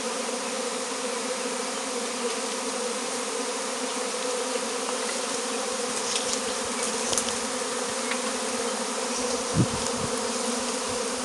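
Steady buzzing hum of a honey bee swarm as it is gathered by hand into a wicker basket. A few faint clicks and one low thump about three-quarters of the way in.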